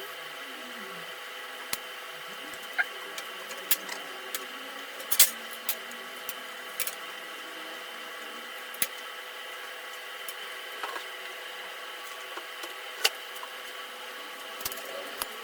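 Scattered sharp clicks and knocks, a dozen or so at irregular intervals and loudest about five seconds in, over a steady hum with several held tones.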